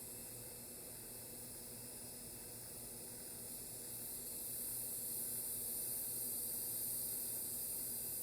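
Wind blowing: a steady high hiss that swells about halfway through, over a faint low hum.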